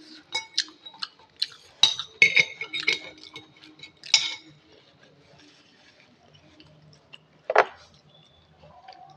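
Cutlery clinking against dishes: a quick run of ringing clinks over the first four seconds, then a single louder knock about seven and a half seconds in.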